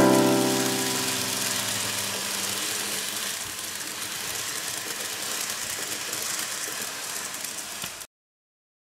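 N-gauge model train running on the layout track: a steady rattling whir of wheels on rail that slowly fades and cuts off abruptly near the end. The last notes of background music die away in the first couple of seconds.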